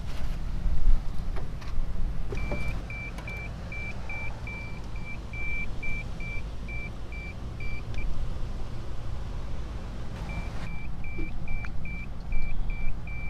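Digital probe thermometer beeping: a quick string of short high beeps for several seconds, a pause, then the beeping starts again near the end. A steady low rumble lies underneath.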